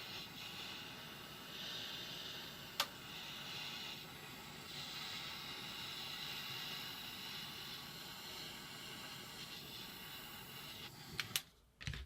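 Steady hiss that cuts off suddenly near the end, with a few clicks and a thump as it stops. There is also a single sharp click about three seconds in.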